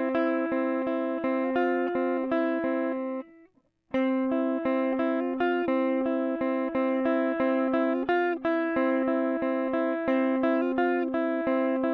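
Guitar picking a repeated pattern of single notes, about four a second. It breaks off about three seconds in and starts again half a second later.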